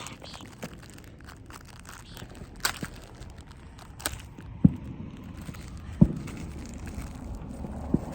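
A few sharp pops and heavier low thumps, spaced a second or two apart, over a faint crackling rustle.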